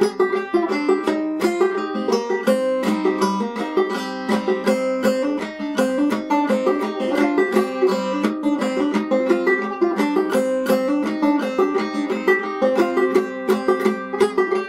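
1903 Fairbanks Whyte Laydie #2 open-back banjo played clawhammer style in Double C tuning (gCGCD), a tune in C minor: a steady, even run of plucked and brushed notes.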